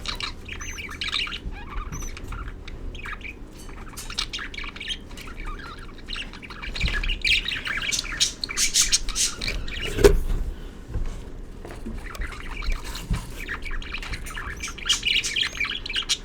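Budgerigars chirping and chattering in quick, busy runs of short calls, with one sharp knock about ten seconds in.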